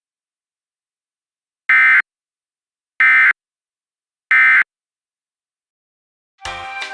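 Emergency Alert System end-of-message data tones: three short, loud bursts of buzzing SAME data, about a second apart, that close the alert. Music starts near the end.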